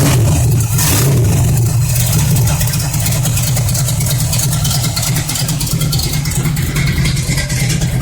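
Cammed 357 small-block Chevy V8 idling rough and choppy through a 2.5-inch exhaust with Flowmaster 40 series mufflers, a deep, uneven exhaust note.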